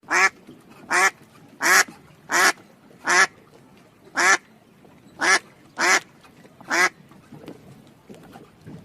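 A duck quacking: nine short, separate quacks at a roughly steady pace of about one a second, stopping about seven seconds in.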